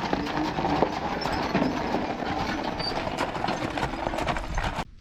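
Continuous rattling and clattering of a horse-drawn rig on the move, with hoofbeats mixed in; it cuts off abruptly near the end.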